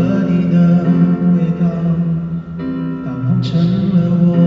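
Live singing with backing music over an arena's sound system, long held sung notes that change pitch a couple of times.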